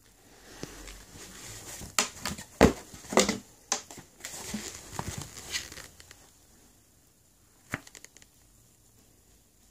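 Handling sounds of a pair of sneakers being picked up and turned over: a string of rustles, knocks and clicks for a few seconds, with one more click near the end.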